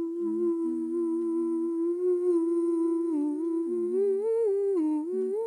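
Wordless humming of a slow melody: long held notes that waver and slide, rising toward the end, with a lower second part coming in briefly a few times.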